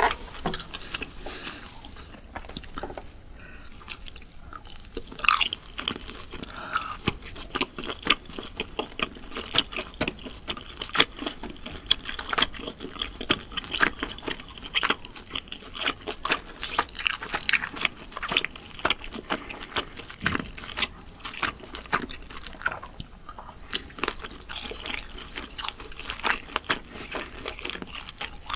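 Chewing of grilled skewered meat, with many small mouth clicks and smacks in quick succession.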